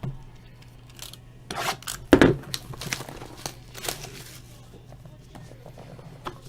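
Plastic shrink-wrap being torn and crinkled while a sealed box of baseball trading cards is opened. The crackling comes in irregular bursts, loudest about two seconds in.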